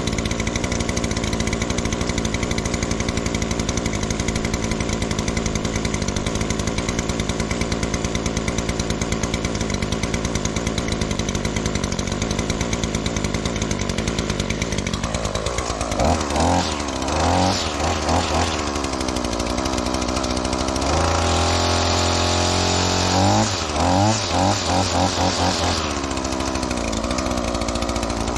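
Echo SRM-2620T string trimmer's two-stroke engine idling steadily, then revved up about halfway through: a few quick throttle blips, a high-revving stretch of a few seconds, more blips, then back to idle. This is a test run of the trimmer after its intake isolator and throttle trigger were replaced.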